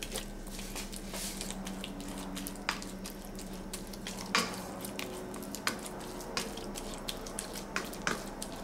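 A green slotted spoon mashing cooked liver and potatoes into a paste in a pot: wet squishing with irregular small clicks and scrapes of the spoon against the pot, over a steady low hum.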